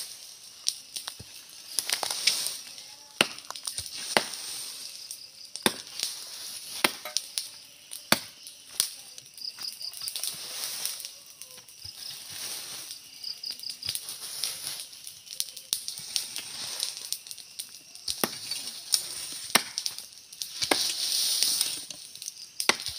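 A blade chopping into the wood at the base of a small tree: sharp, irregular strikes, roughly one a second, over a steady high hiss.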